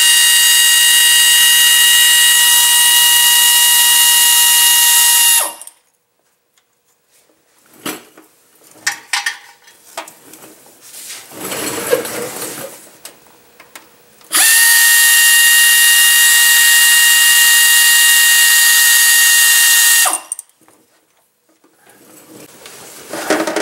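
Pneumatic air ratchet spinning out the bolts of an automatic transmission pan, heard as two long runs of steady high whine with air hiss, each about six seconds. Quieter clicks and rattles come between the runs.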